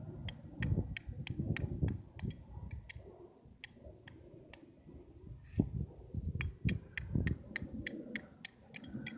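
A run of sharp, high clicks, about three a second, that stops for a second or so in the middle and then starts again, over a low uneven rumble.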